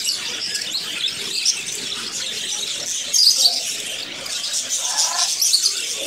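A flock of budgerigars chattering and chirping without a break, with a louder burst of chirps about three seconds in.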